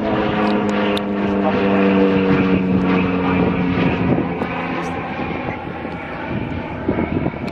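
Propeller-driven light aircraft passing overhead: a steady engine drone whose pitch sinks slowly, fading out about halfway through.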